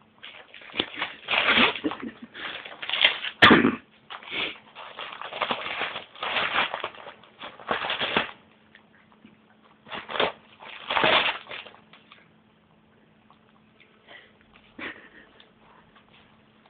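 A Jack Russell–Chihuahua cross puppy ripping and crumpling a newspaper: irregular bursts of tearing, rustling paper for about twelve seconds, then mostly quiet with a few small rustles near the end.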